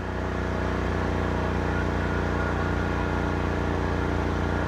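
AIMS 6600-watt inverter generator's four-stroke OHV engine running steadily at full load, about 5,800 watts, close to its overload point. The hum grows louder right at the start, then holds steady.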